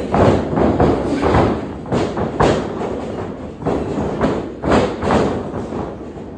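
A steady run of heavy thumps and knocks, irregular, about one or two a second.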